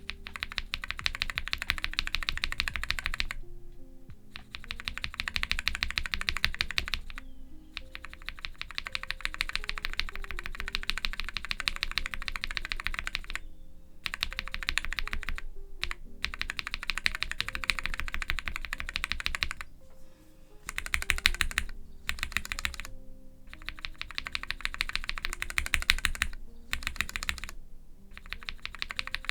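Mechanical keyboard with Cherry MX2A Orange tactile switches being typed on quickly, in runs of fast keystrokes broken by short pauses every few seconds, over soft background music.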